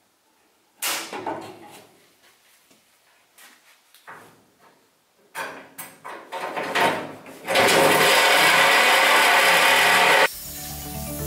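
Metal knocks and clatter from work on a truck bed's sheet metal, then a loud power tool running steadily for about three seconds, cut off abruptly near the end.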